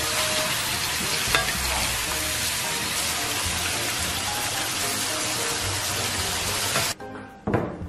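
Crayfish tails stir-frying in a wok with onion, green pepper and celery, a steady loud sizzle under the wooden spatula, with faint background music. The sizzle cuts off suddenly about seven seconds in, and a single knock follows.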